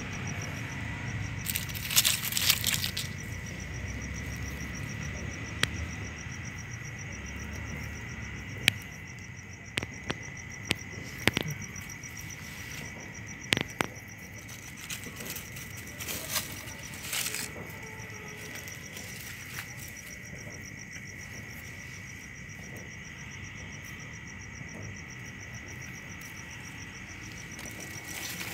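Night insects chirring: one steady high trill and a faster pulsing one above it, with scattered clicks and rustles of dry leaf litter.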